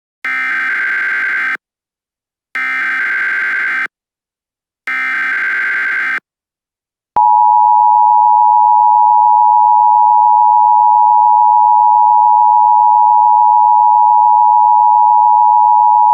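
Emergency Alert System tones: three short buzzing data bursts of the header code, about a second apart. About seven seconds in, the steady two-tone EAS attention signal starts and holds, loud.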